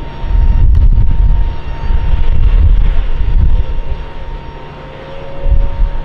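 Airbus A330-300 airliner on pushback: a steady high whine over a low rumble that swells and fades, with a faint tone rising slightly in the second half.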